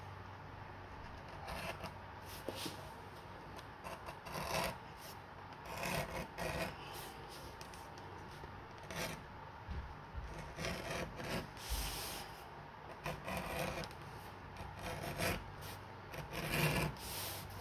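Keen #3 edge beveler shaving the edge of a veg-tan leather belt strap: a series of short scraping strokes at an uneven pace.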